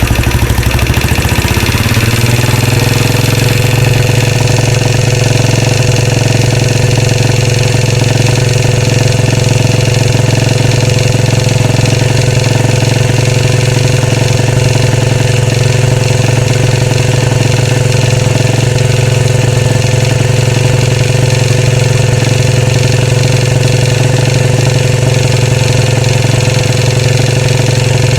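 2013 Royal Enfield Classic 500's single-cylinder engine idling steadily, its pitch stepping up slightly about two seconds in. A rattle that comes and goes runs through the idle; its cause is still unknown.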